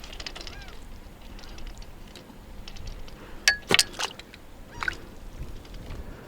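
Wind rumbling on the microphone, with a few sharp clicks and knocks, the loudest cluster about three and a half to four seconds in and another near five seconds.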